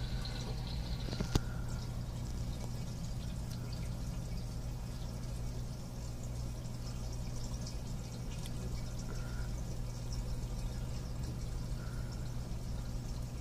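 Reef aquarium's circulating water: a steady trickling, dripping sound over a low, even pump hum, with one sharp click about a second in.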